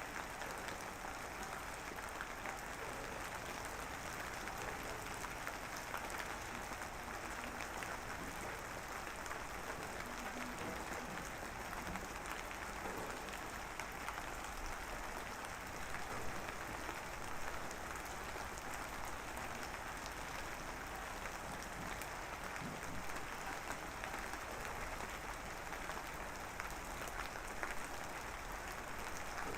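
Light drizzle falling steadily, a continuous patter of fine raindrops.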